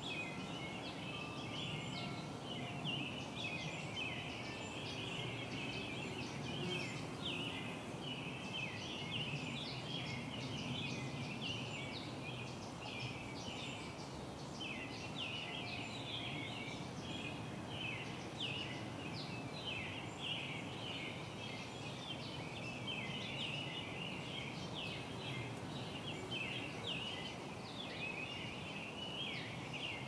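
A dense chorus of birds chirping: many short, rapid, overlapping chirps with no pause, over a steady low background hum.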